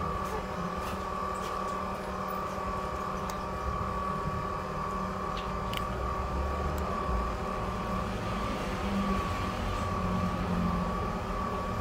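Steady machine hum with a constant high whine, and a few faint clicks over it.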